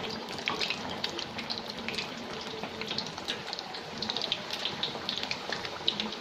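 Steamed bati pieces deep-frying in hot oil, freshly dropped in: a steady bubbling sizzle thick with small crackles as the moisture in the dough boils off.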